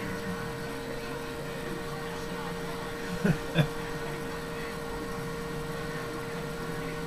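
Faint television sound over a steady hum, broken about three seconds in by two short, loud sounds in quick succession.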